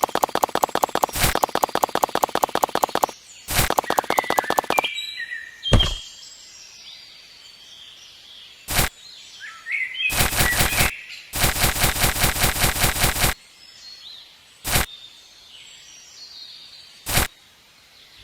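Bursts of rapid clicking, about ten clicks a second, and several single sharp knocks, with birds chirping in the gaps between them.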